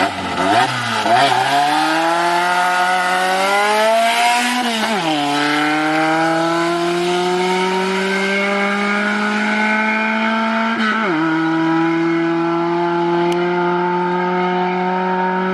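Car engine accelerating hard through the gears. The pitch climbs steadily, then drops sharply at two upshifts, about five and eleven seconds in.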